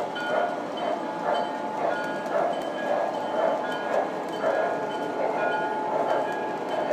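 MTH Premier O scale model steam locomotive's electronic sound system chuffing in a steady rhythm, about one chuff a second. Model train wheels roll and click over the track underneath.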